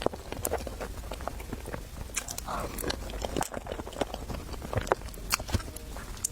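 Close-miked eating sounds of Chinese food: chewing and biting, with irregular clicks and crunches.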